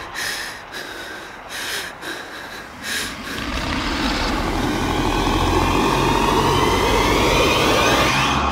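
Horror-film sound design: a few short, sharp hits in the first three seconds, then a loud rumbling swell with climbing, whooshing tones that builds to the end.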